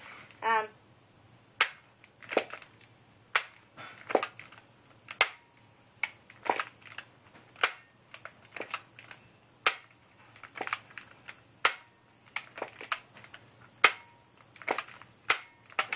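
Plastic Nerf toy blasters being handled: a series of sharp plastic clicks and clacks, roughly one a second, some in quick pairs.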